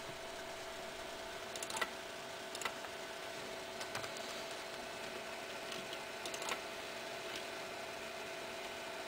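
Scattered faint clicking of a computer's mouse and keyboard over a steady low electrical hum.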